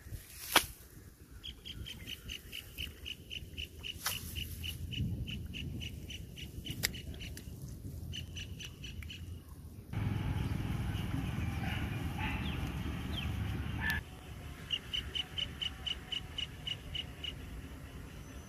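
A bird calling a long run of evenly repeated high chirps, about three a second, breaking off for a few seconds of low rumbling noise and then starting again. A sharp click sounds about half a second in.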